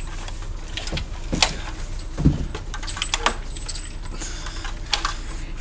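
Scattered light metallic clicks and clinks from guns and ammunition being handled, some with a faint high ring.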